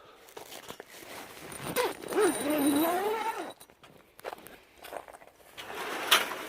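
A dog giving a drawn-out whine, wavering up and down in pitch for about a second and a half, with light footsteps and scuffs around it and a sharp click near the end.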